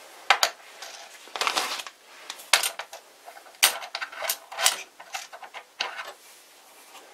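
Small metal tools and parts clinking and rattling as they are handled on a tabletop: a string of irregular sharp clinks, with a short rustle about a second and a half in.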